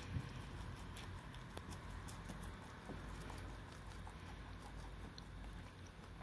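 Rabbits chewing cabbage leaves: faint, irregular crunching with small clicks and ticks.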